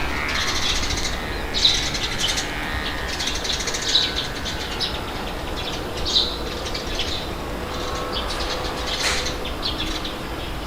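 Songbirds chirping in short high calls every second or so over a steady low rumble of wind.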